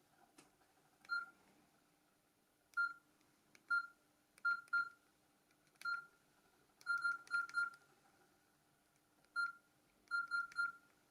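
Nokia 6210s Navigator's keypad tones: about fourteen short, identical beeps at irregular intervals, some in quick runs of two to four, as keys are pressed. They come from the phone's newly replaced speaker while it is being tried out.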